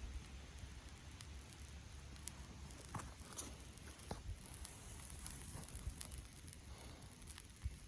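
Faint scattered crackles and rustling from dry tinder of grass and cattail fluff, over a low rumble.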